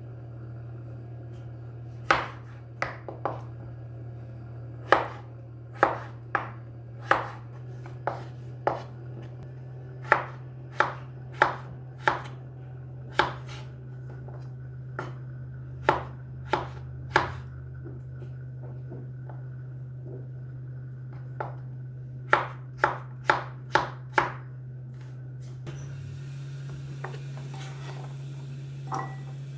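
A kitchen knife chopping food, in irregular runs of sharp strokes with short pauses between them, over a steady low hum.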